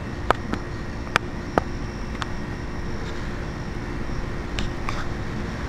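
Steady low background rumble with a few sharp clicks scattered through it.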